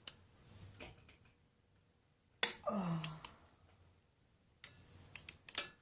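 Sharp metallic clicks and clinks of hand tools on the flywheel bolts, a quick cluster near the end, with a short vocal exclamation with falling pitch about two and a half seconds in.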